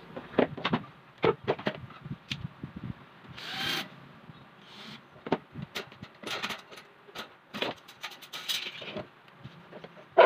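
Clatter of an orbit fan being taken apart: short clicks, knocks and rubbing from its metal wire guard, guard clip ring and plastic blades being handled, with a longer scrape a few seconds in and a sharp click near the end.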